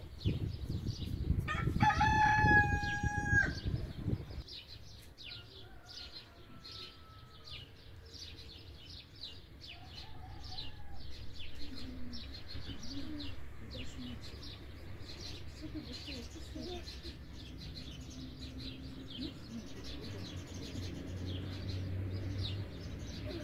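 A rooster crows once, a single held call about two seconds in, over a low rumble. Small birds chirp throughout.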